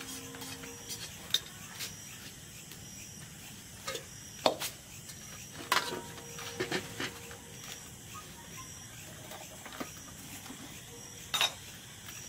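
Steel kitchen utensils clanking as pots, lids and vessels are picked up and set down: a few scattered sharp clinks, one of which rings briefly. Underneath, an insect chirps in short, evenly spaced pulses.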